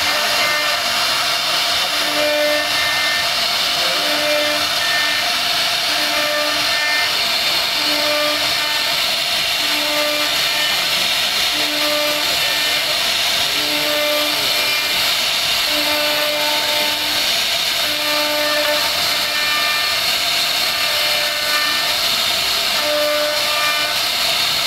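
CNC router spindle running, its bit carving a wooden board as a steady, loud, high-pitched machine noise. A short hum recurs about every two seconds.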